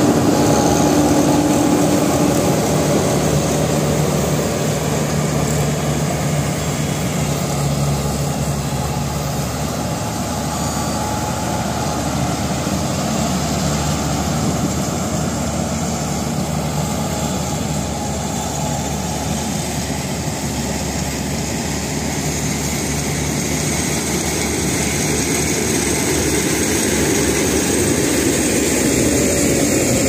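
Tracked combine harvester with a 76 hp Ashok Leyland engine, running steadily as it harvests, with a continuous machine drone. The drone is loud throughout, dips a little through the middle and rises again near the end.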